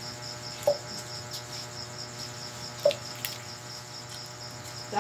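Crickets chirping steadily in a high-pitched pulsing trill, with a faint steady hum under it. Two brief sharp sounds stand out, about a second in and again near the middle.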